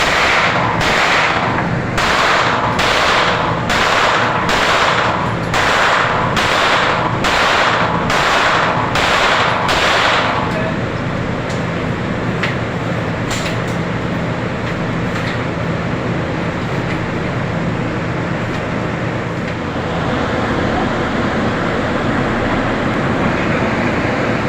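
Gunshots fired in a steady string, about one and a half a second, each with a short echo, for roughly the first ten seconds; a few single sharp clicks follow, over a steady background rumble.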